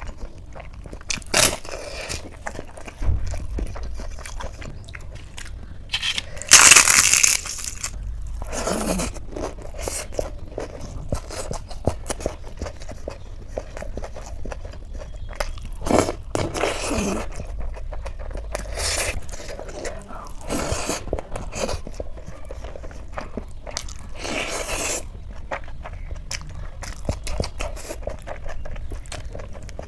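Close-miked eating: a person chewing and crunching mouthfuls of rice, noodles and sauce-covered vegetables eaten by hand, in irregular bites and chews. The loudest crunch comes about seven seconds in.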